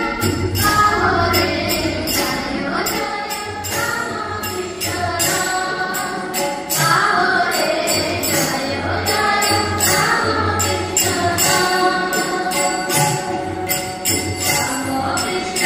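Devotional group singing of a prayer hymn with jingling metal percussion struck in a steady beat, and a low accompanying note coming and going underneath.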